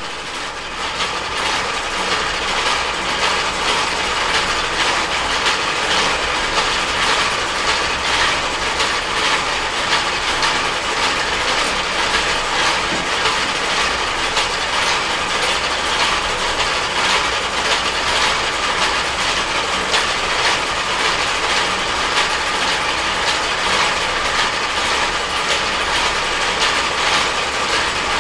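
Rotary sand dryer drum turning at 30 RPM: a steady mechanical rattle of dense small clicks over a low rumble from the turning drum and its drive.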